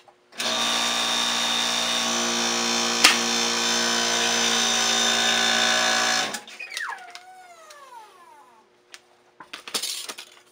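Electric hydraulic press pump running steadily for about six seconds as the press closes on a pancake die, with a single sharp snap about three seconds in as the die shears through the copper sheet. The motor then cuts out and winds down with a falling whine, and light metal clinks follow as the die and cut part are handled.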